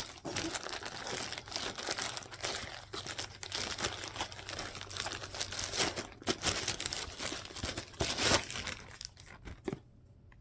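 Packaging crinkling and tearing as a subscription box is unwrapped by hand, a busy rustle that stops suddenly near the end.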